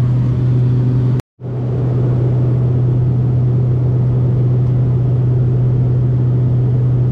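Steady engine drone with a strong low hum and air noise, heard inside the cabin of a small private plane in flight. The sound breaks off for a split second about a second in, then carries on unchanged.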